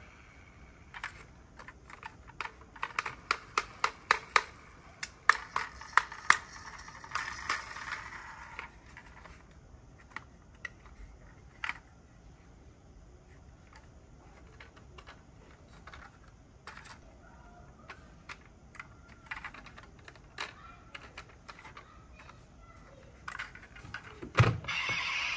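Die-cast model car being handled: a quick run of sharp, typing-like clicks for several seconds as its doors and parts are worked, then scattered single clicks. A heavier thump near the end.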